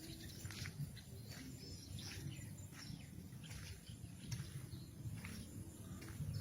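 Outdoor ambience: birds giving short, scattered chirps over a low rumble and a steady high hiss.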